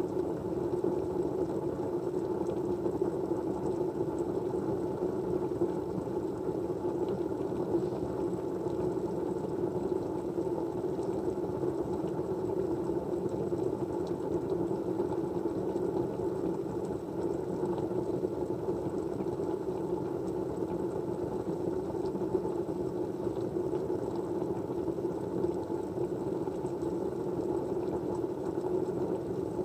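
Steady white-noise background: an even, continuous rushing sound, deepest in the low-middle range, with no rhythm and no change throughout.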